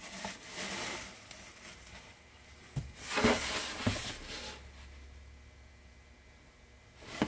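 A t-shirt being handled and unfolded over a cardboard shipping box lined with packing paper: two bouts of rustling, the second louder and carrying a couple of soft knocks about three to four seconds in.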